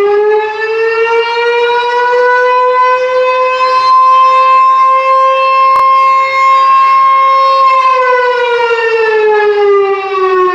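Genasys LRAD DS-60XL speaker array playing a recorded ASC T-128 mechanical siren blast. The siren tone winds up to a steady wail, holds for several seconds, then begins winding down in pitch about eight seconds in.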